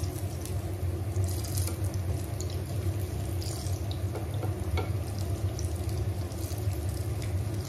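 Banana fritters frying in shallow olive oil in a pan: a steady sizzle with scattered small crackles and pops, over a steady low hum.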